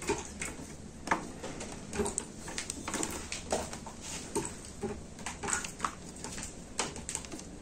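Irregular metallic clicks and clatter as a Honda Magna 250's old drive chain is worked apart at a link. The chain is dry and unlubricated and rattles loosely.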